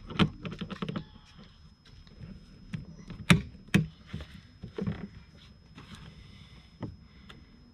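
Scattered clicks and knocks of a hand tool and plastic intake parts being handled while a hose clamp on the intake's MAF coupler is tightened. Two sharp clicks stand out about three seconds in.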